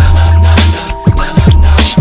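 Hip hop backing music with a steady beat: deep bass notes each held under most of a bar, broken by booming kick drums, with crisp high percussion hits above.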